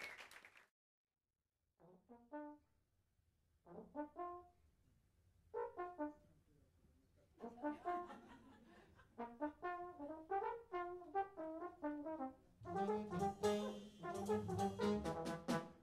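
Applause dies away, and after a short pause an unaccompanied jazz trombone begins a solo. It opens in short phrases with gaps between them, then plays a continuous line. About three seconds before the end, drums and a low bass line come in under it.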